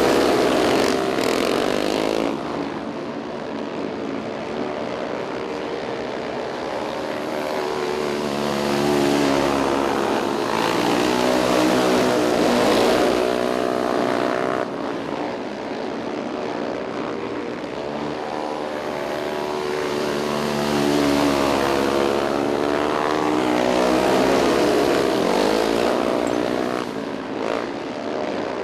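Several 500cc sprint car engines racing at high revs, their pitch rising and falling as the cars go through the turns and past, the sound swelling louder every several seconds as the pack comes by.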